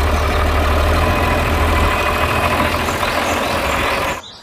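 John Deere farm tractor engine idling steadily with a deep low hum. It cuts off suddenly near the end.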